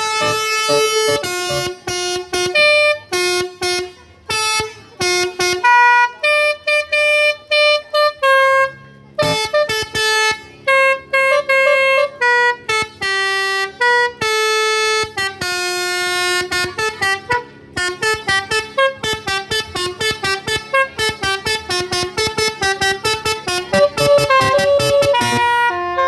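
Basuri telolet horn, a multi-tone electric musical car horn, playing a melody note by note. The first half has longer held notes; from about halfway the notes come as quick short toots, several a second.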